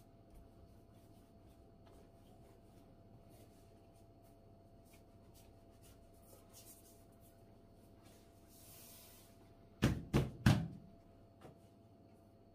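Long thin wooden rolling pin wrapped in baklava dough knocking on a wooden table three times in quick succession near the end, just after a soft swish of the dough sheet on the floured board. Otherwise only faint rustles and taps of dough being rolled.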